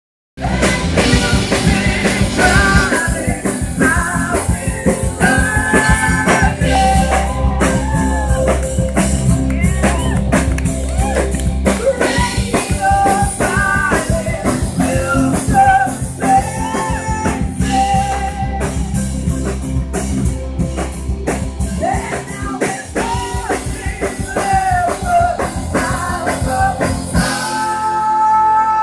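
Live rock band playing, with a singer, drum kit and guitar. Near the end the beat drops away into a held keyboard chord.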